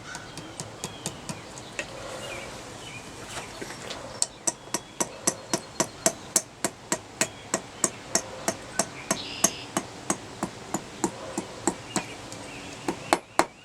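Ball-peen hammer striking a hot horseshoe nail on an anvil to finish a small scroll. A few light taps come first, then from about four seconds in a steady run of ringing blows at about two to three a second.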